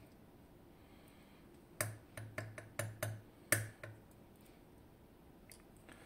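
A quick run of about eight sharp, small metallic clicks and taps, starting about two seconds in and lasting about two seconds. They come from tweezers working the pins out of a disassembled DOM IX Twido lock cylinder.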